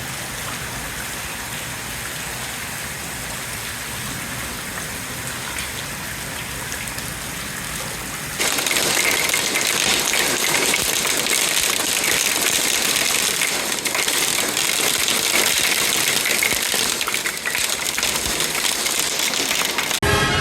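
Heavy rain and hail pelting down in a dense, steady patter of impacts, which gets abruptly louder about eight seconds in.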